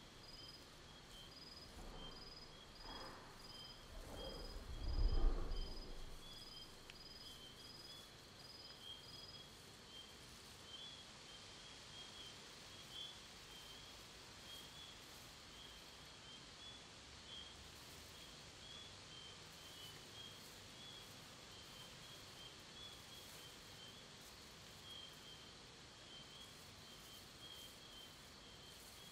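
Faint, quiet forest ambience of high chirping that repeats evenly, about two chirps a second. About five seconds in comes a low creaking rumble of a massive tree.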